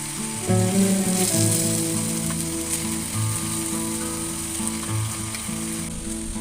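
Food sizzling as it stir-fries in a pan, a steady hiss, over instrumental background music. The sizzle drops away near the end, leaving the music.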